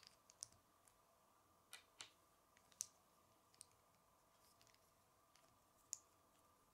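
Plastic Lego bricks clicking as fingers handle them and press them together: faint, short, irregular clicks, about ten in all, the sharpest a little under three seconds in and near the end.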